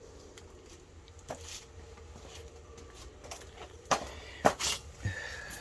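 A few scattered clicks and knocks over a low steady hum, the sharpest ones about four to five seconds in.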